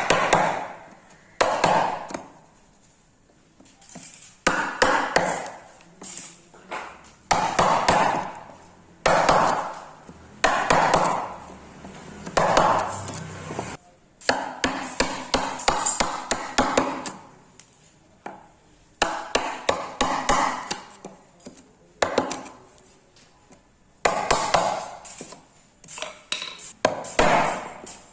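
Hand tools knocking on wood: groups of quick, sharp strikes with short pauses between them.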